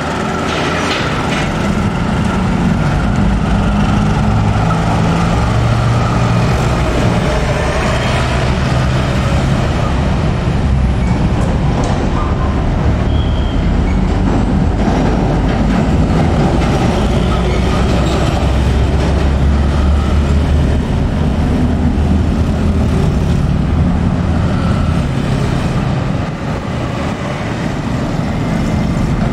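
Diesel-electric locomotive running at low speed while shunting a train of container flatcars, its engine giving a steady low drone over the rumble of the wagons on the rails. The engine sound eases off slightly near the end.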